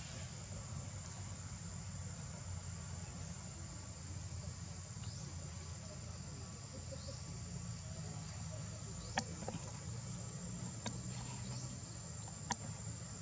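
Steady high-pitched drone of insects, with a short rising chirp every couple of seconds, a low rumble underneath and three sharp clicks in the second half.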